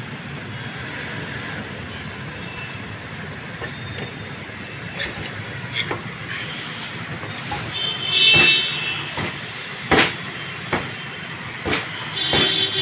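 Sharp metal knocks and clinks as the cylinder head of a Honda Dream Yuga engine is set onto the block, the loudest about ten seconds in. Under them runs a steady hum of road traffic.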